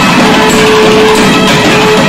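Loud South Indian temple procession music: a nadaswaram holds one long steady note over busy drumming.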